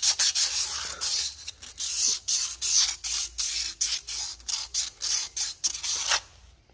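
Sandpaper rubbed by hand, 220 grit, around the front wheel bearing bore of a 2014 Toyota Venza, in quick back-and-forth strokes that slow after the first second and stop about six seconds in. The bore is being cleaned of rust and gunk to a smooth surface for the new bearing.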